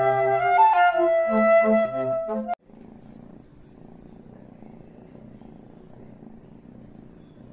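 Background music with a pitched melody cuts off about two and a half seconds in. After it, a kitten purrs with a steady low rumble.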